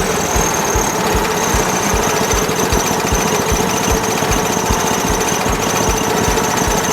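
Wood-Mizer LT10 portable band sawmill running, with a regular low thump about two and a half times a second under a steady whine.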